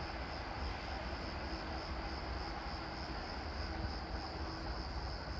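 Steady background ambience on a railway station platform: a low rumble with an even hiss and a faint steady hum, and no train passing.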